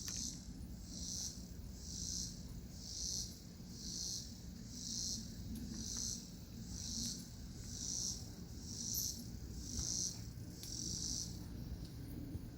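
An insect calling in a steady rhythm of high-pitched buzzing pulses, about one a second, that stops near the end.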